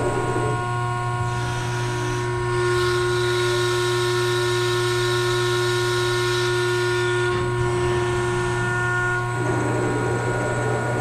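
CNC press brake running: a steady hydraulic-pump hum with several high whining tones. The sound changes as the servo-driven back gauge travels back and returns, with a rougher rushing sound at the start and again near the end.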